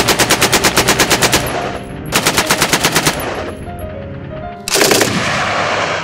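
Bren light machine gun firing short bursts at about eight shots a second: one of about a second and a half, then one of about a second. Near the end there is a third, denser burst in which the single shots run together. Background music with sustained notes plays underneath.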